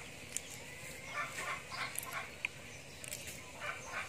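Short animal calls, clucks and chirps coming in quick clusters, with one brief high peep about two and a half seconds in.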